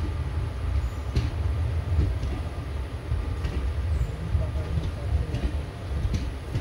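Passenger train rumbling, with irregular metallic clanks and knocks from the wheels and coaches. No horn sounds.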